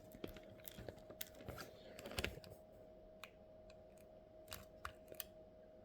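Irregular light clicks and taps, a quick cluster of them about two seconds in, over a faint steady hum.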